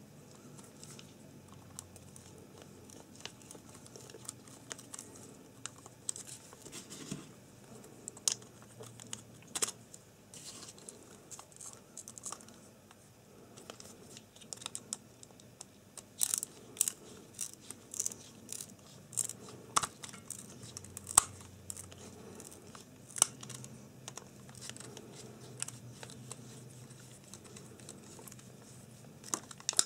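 Small screwdriver driving three little metal screws into the front of a soldering iron's plastic handle: irregular light clicks and scrapes of metal on metal, with handling noise. The clicks come more often and louder from about halfway through.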